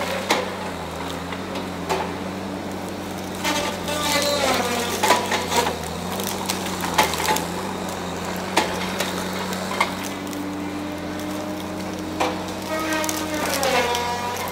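Tigercat 870C feller buncher running steadily at a distance, with sharp cracks and snaps of pine trunks and branches breaking as trees are cut and pushed over. A whine rises in pitch twice, about four seconds in and again near the end.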